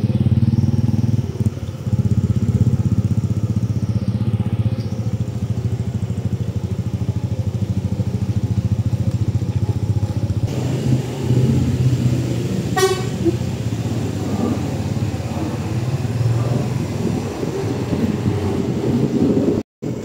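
Steady low engine drone from a motorcycle riding slowly behind a large truck, with one brief sharp sound about 13 seconds in.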